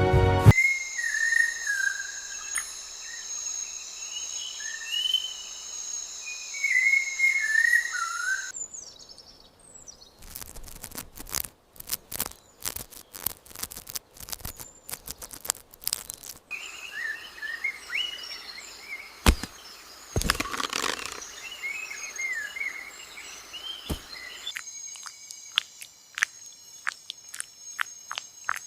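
Forest ambience: birds warbling over steady, high insect trilling. A run of sharp clicks comes in the middle, and regular ticking with the insect tones near the end.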